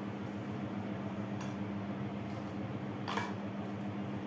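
A steel spoon clinking against steel bowls as curd-soaked rice is spooned from one bowl into another: a faint clink, then a louder one about three seconds in. A steady low hum runs underneath.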